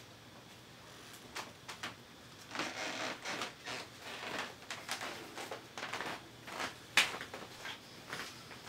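African grey parrot making a run of short, scratchy noises and clicks: a few clicks at first, then rasping bursts, with one sharp loud click about seven seconds in.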